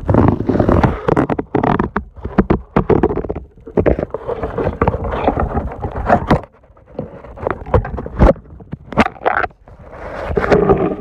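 Muffled underwater handling noise from a phone's microphone held under a pond's surface. There are irregular knocks, clicks and scraping mixed with rough water rumble, loud and uneven, with a brief lull a little past the middle.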